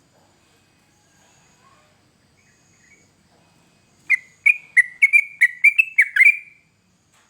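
Yellow-vented bulbul (trucukan) singing: a quick burst of about nine loud, sharp, bubbly notes, starting about four seconds in and lasting about two and a half seconds. Faint insect trilling is heard before it.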